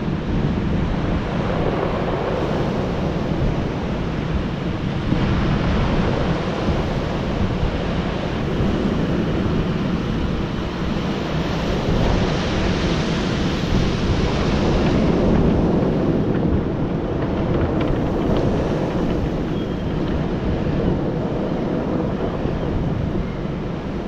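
Ocean surf breaking and washing up a beach of rounded cobbles, with wind on the microphone. The waves get louder for a few seconds just past the middle.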